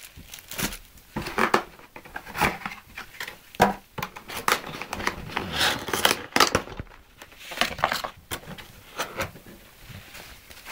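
Packaging being handled while a camcorder box is unpacked: irregular rustles, clicks and light knocks of bags and box contents being moved and lifted out.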